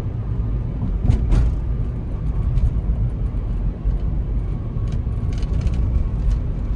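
Steady low rumble of a moving vehicle, with a few light clicks about a second in and again near the end.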